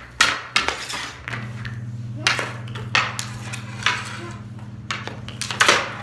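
Hockey stick blade and a small street-hockey puck clacking on a concrete floor as the puck is stickhandled, a string of irregular sharp knocks. A steady low hum comes in about a second in and holds.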